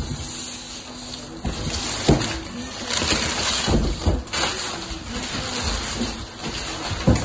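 Cardboard box and plastic wrapping being handled: uneven rustling and crinkling, with a few dull knocks of the box being moved.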